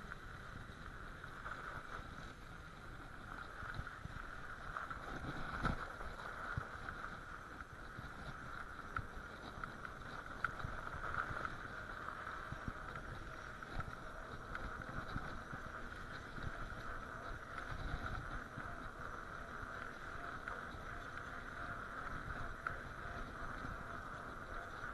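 Bicycle tyres rolling over packed snow and ice: a steady rolling noise with low rumble and scattered small knocks and rattles as the bike rides over the rough surface, one louder knock about six seconds in.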